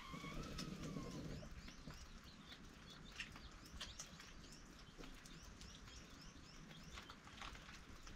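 Faint chirping of small birds: many short, quick calls repeating throughout, with a few light clicks mixed in.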